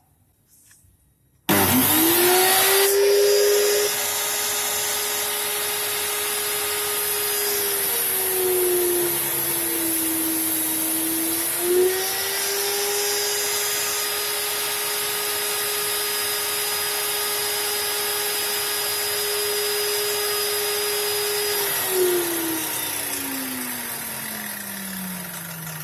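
Homemade table saw driven by a circular saw motor switched on about a second and a half in, spinning up quickly to a steady high whine. Its pitch sags for a few seconds in the middle and then recovers, and near the end it is switched off and winds down with a steadily falling pitch.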